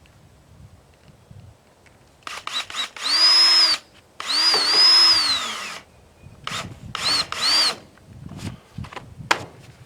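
Cordless drill running in short bursts while driving a fastener. It gives a few quick taps, then two longer runs of about one and one and a half seconds, then several short bursts, its motor whine rising and dipping in pitch.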